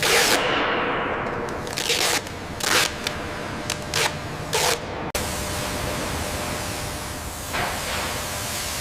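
Spray gun hissing in a string of short bursts, then a steady hiss after about five seconds.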